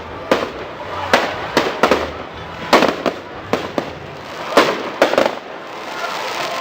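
Fireworks going off: an irregular run of about a dozen sharp bangs, each trailing off in an echo.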